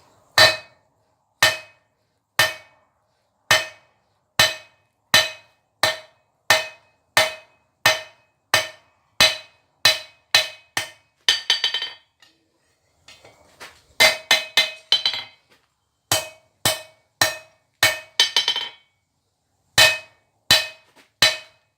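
Hand hammer striking hot steel on an anvil while forging out blacksmith's tongs: steady blows with a short metallic ring after each, about one a second at first and then quicker, with two brief flurries of rapid lighter blows, each followed by a short pause.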